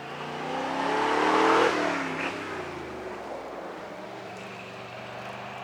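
A motor vehicle driving past, its engine note rising as it approaches, loudest about one and a half seconds in, then dropping in pitch as it moves away.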